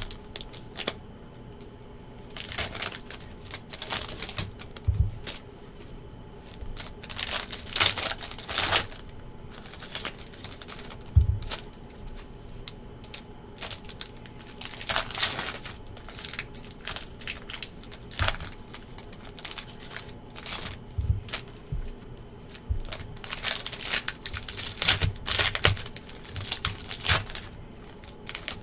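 Panini NBA Hoops trading-card packs being opened and handled: plastic wrappers crinkling and tearing, and cards rustling, in irregular bursts, with a few soft low thumps.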